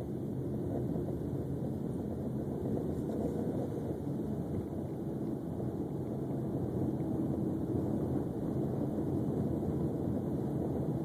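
Steady low drone of a car's engine and tyre noise heard from inside the cabin while driving at an even speed, with a faint steady hum.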